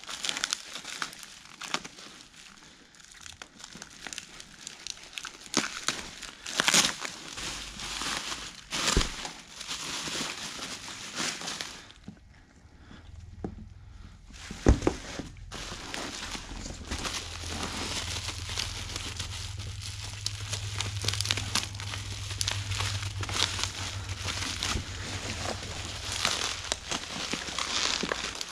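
Plastic bubble wrap crinkling and foam packing peanuts rustling as a wrapped coilover is handled and unwrapped in a cardboard box, with a few sharper clicks. A low steady hum comes in about halfway.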